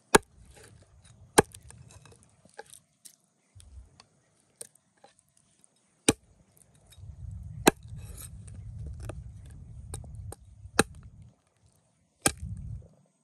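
A knife chopping raw chicken wings apart on a wooden cutting board: about six sharp chops spaced one to four seconds apart, with lighter knocks of the pieces being handled between them.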